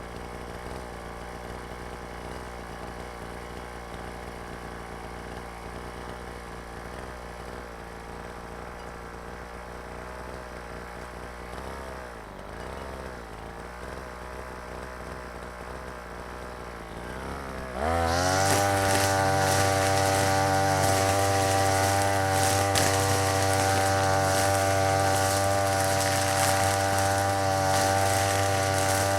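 Brush cutter engine idling with nylon trimmer line fitted, then throttled up sharply about two-thirds of the way in to a loud, steady high-speed run.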